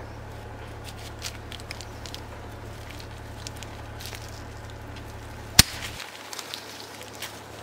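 Pruning shears cutting through a woody stem to sever a rooted air layer from the parent plant: scattered small clicks as the blades work into the wood, then one sharp snap about five and a half seconds in as the stem gives way.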